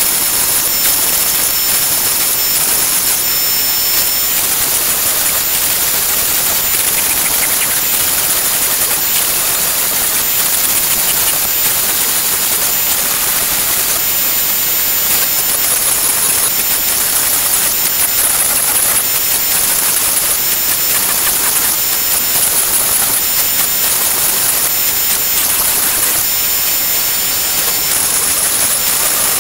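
A Shapeoko XXL CNC router's 1/4-inch palm-router spindle cutting Baltic birch plywood, with a vacuum hose on its dust boot. It makes a steady high-pitched whine over a loud rushing hiss, and the whine dips briefly every few seconds as the bit moves through the cut.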